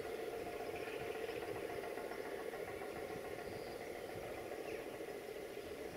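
Diesel railway engine idling with a steady, unchanging note.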